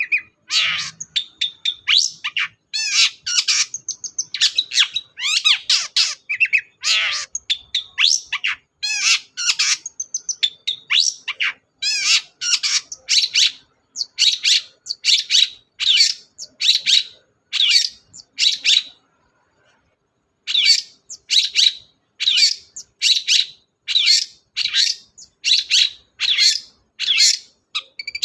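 Long-tailed shrike (cendet) singing hard: a fast, dense run of harsh chattering and mimicked calls. About two-thirds of the way through it breaks off briefly, then resumes as a steady series of sharp repeated notes about two a second.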